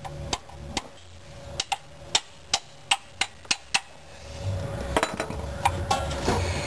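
A 14 mm wrench clicking and clinking on the steel oil drain plug of a car's oil pan as it is worked loose: a run of sharp metallic clicks a few a second, with a pause in the middle. A low rumble comes in after about four seconds.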